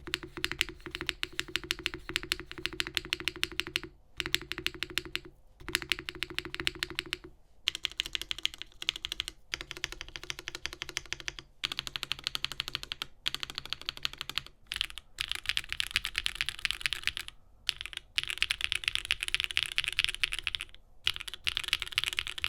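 Typing on a copper gasket-mount Neo75 Cu mechanical keyboard with hand-lubed Gateron Deepping switches on a polypropylene plate: fast runs of keystrokes, broken by short pauses every few seconds.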